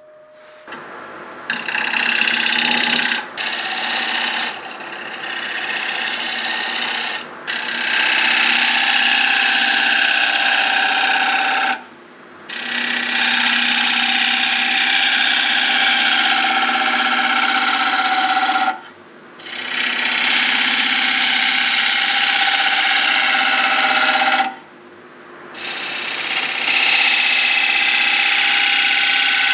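A power tool working wood in long passes of several seconds: a steady motor hum under a loud rushing sound of wood being cut or sanded, breaking off briefly three times.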